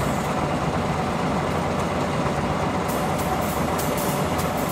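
Narrow-gauge diesel locomotive idling steadily with a low rumble. A few faint metallic clicks come in over it in the last second or two.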